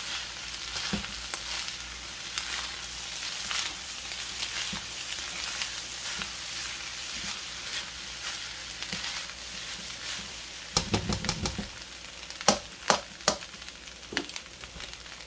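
Fried rice sizzling in a large, hot wok as it is stirred, with a steady crackling hiss. About eleven seconds in comes a quick run of sharp knocks, then three more single knocks shortly after.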